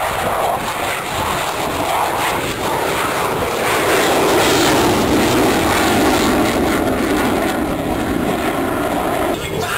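Airplane flying over, a loud steady engine roar that swells towards the middle and then eases, cutting off abruptly near the end.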